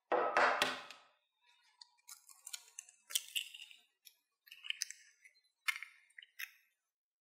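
A raw egg knocked against the rim of a ceramic bowl, one loud crack near the start. Then a series of small, sharp crackling clicks as the eggshell is pried apart and the white drains into the bowl.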